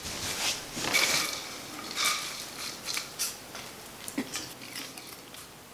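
A bowl of snacks being handled and eaten from: irregular light clatters and rustles, loudest about one and two seconds in.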